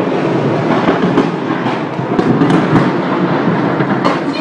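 A gas station fire just after an explosion: a loud, dense rumble of the blaze with crackling and popping throughout.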